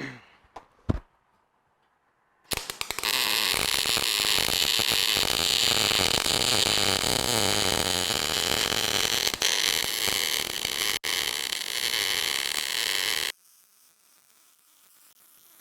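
Welding arc laying a bead on the steel bumper: a steady, loud crackle that starts a few seconds in, runs for about ten seconds and cuts off sharply. A single click comes just before it.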